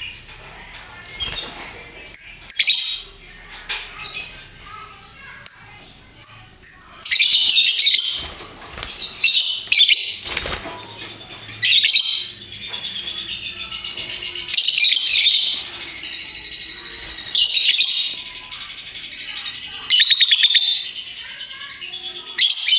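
Lovebirds giving shrill chattering calls, the long rapid 'ngekek' chatter, in loud bursts of about a second that repeat every two to three seconds, with scattered shorter chirps before them.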